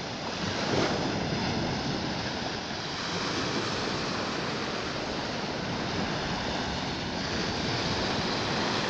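Baltic Sea surf: small waves breaking and washing up a sandy shore, a steady rushing wash that swells briefly about a second in.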